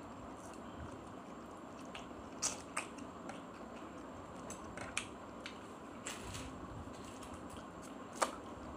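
A person eating instant noodles with chopsticks: quiet chewing with scattered short wet mouth clicks and smacks, the loudest near the end.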